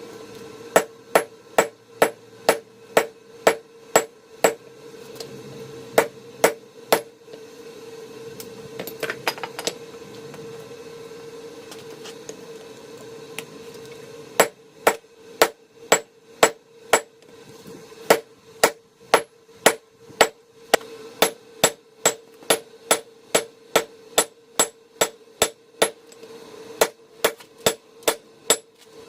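Blacksmith's hand hammer striking hot rebar steel on an anvil, about two blows a second. The blows stop for several seconds partway through, then pick up again at the same steady pace. A steady hum runs underneath.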